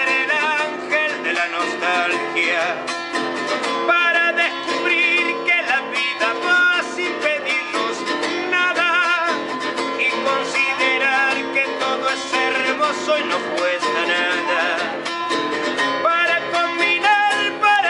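A man singing with vibrato while strumming an acoustic guitar.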